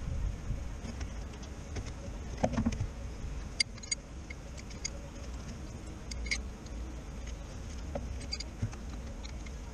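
Scattered metallic clicks and taps of hand tools and a wrench knocking against engine-bay parts, a few separate knocks spread over several seconds, over a low steady background rumble.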